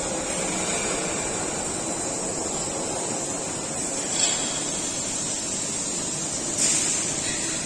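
Production-line machinery running with a steady high hiss, and two short louder bursts of noise, one about four seconds in and one near the end.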